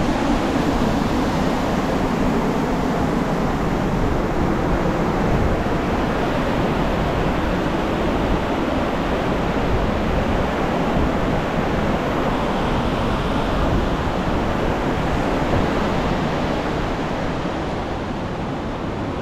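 Water pouring over a dam spillway and rushing through a rocky river as white-water rapids: a loud, steady rush that grows slightly fainter near the end.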